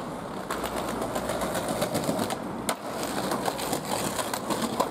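Skateboard wheels rolling over rough pavement, a steady rattling rumble broken by a few sharp clacks.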